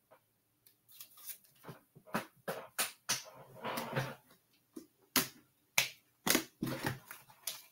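Irregular sharp clicks and taps, roughly two a second, with a longer rustling scrape about three seconds in.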